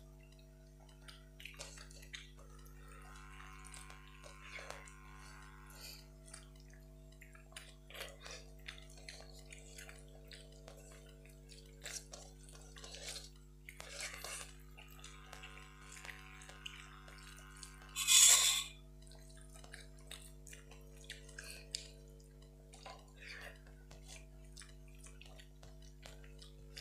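Hands mixing rice and curry on steel plates, with quiet chewing and scattered small clicks and taps over a steady low hum. About two-thirds of the way through comes one brief, much louder sharp clatter, likely the steel serving spoon knocking against its steel bowl.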